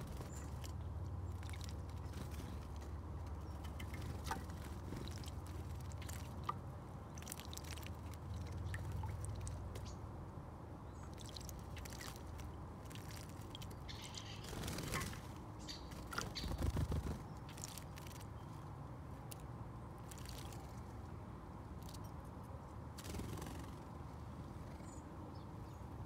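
Blue tits and great tits splashing in a shallow bird bath: scattered small splashes and flicks of water over a low steady hum, with two louder flurries of splashing past the middle.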